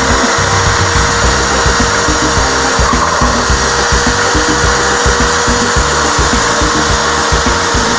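A power tool running steadily, with background music playing over it.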